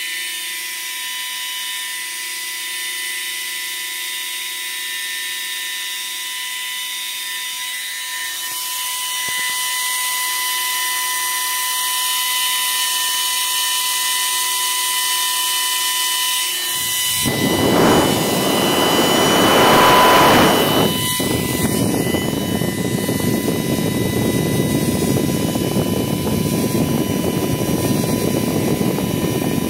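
Small AVC DFTA0456B2U 12 V 1.70 A high-speed fan running with a steady high-pitched whine made of several tones. About halfway through, a much louder rush of air takes over, strongest for a few seconds and then steady to the end.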